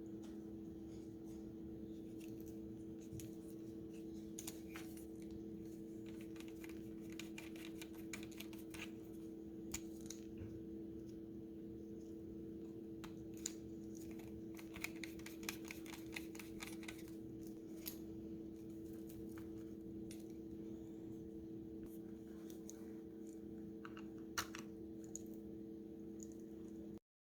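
Scattered light clicks and taps, like small plastic items being handled, over a steady low hum; everything cuts off suddenly near the end.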